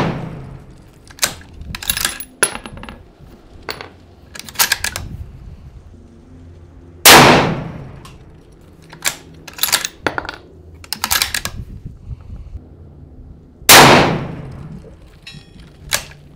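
Muzzle-braked 6.5 Creedmoor bolt-action rifle firing twice, about six and a half seconds apart, each shot loud and sharp with a ringing tail. Between the shots come clicks and light metallic clinks of the bolt being worked and spent brass landing.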